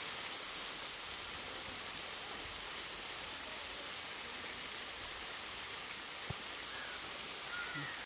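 Steady hiss of running water, with a few faint short bird chirps near the end and a single click a little after six seconds.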